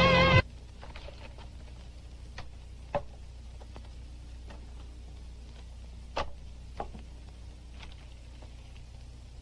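Music cuts off abruptly about half a second in. It gives way to a quiet room tone with a steady low hum, broken by a few scattered sharp taps, two of them in pairs about half a second apart.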